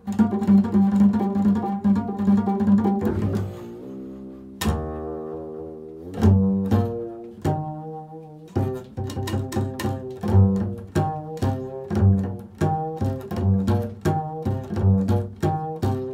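Upright double bass played pizzicato in an improvised solo: a fast run of repeated plucked notes for the first few seconds, then one sharply plucked low note left to ring, then a string of separate plucked notes, about two or three a second.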